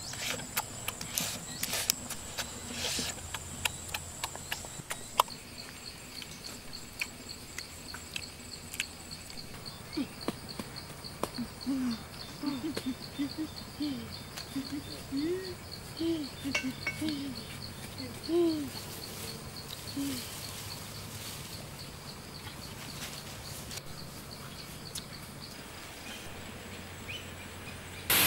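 Forest ambience: an insect's steady high-pitched trill of rapid pulses, with sharp clicks in the first few seconds and a run of about a dozen short, low hooting animal calls midway.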